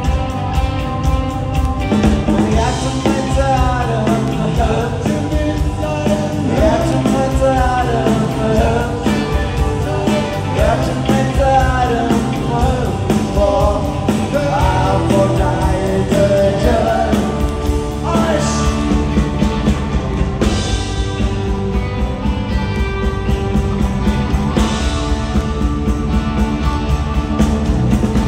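Live rock band playing: drums, electric bass, and electric and acoustic guitars, with a wavering lead melody line over the band for roughly the first two-thirds.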